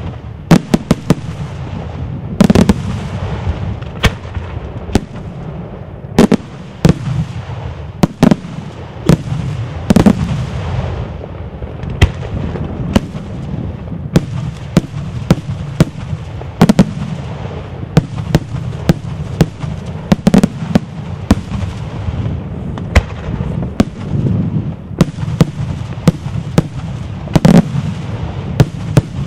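Daytime aerial fireworks bursting: irregular sharp bangs, roughly one or two a second, over a continuous low rumble.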